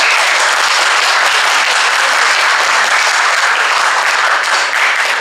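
Audience applauding, tailing off near the end.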